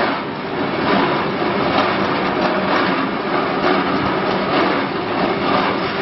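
Carbonization furnace line's machinery running steadily, a loud continuous mechanical noise with a fine rattle, as hot charcoal powder is discharged.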